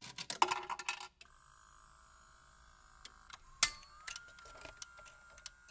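A jukebox sound effect: coins clatter into the slot for about a second, then the mechanism runs with a steady high whine broken by a few sharp clicks, the loudest about halfway through.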